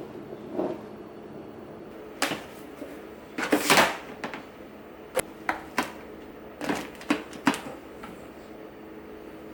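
Household handling sounds: a scattering of sharp clicks and knocks, with a brief louder rustle a few seconds in, over a steady low hum.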